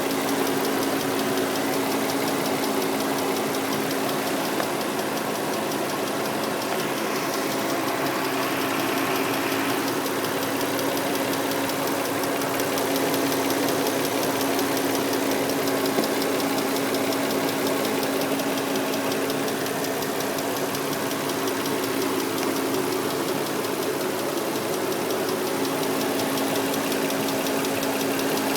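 2003 Nissan Murano's 3.5-litre V6 engine idling steadily, with a rapid, even ticking over the engine note. The ticking has only just started, and its cause is unknown.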